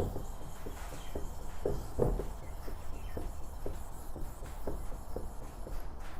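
The flat back of a chisel blade sliding back and forth on a wet Japanese finishing stone covered in slurry, with light pressure. It makes a soft, rhythmic rubbing of about two strokes a second, one a little louder about two seconds in.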